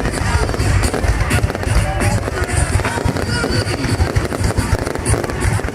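Aerial fireworks going off in a rapid, dense stream of bangs and crackles, mixed with music.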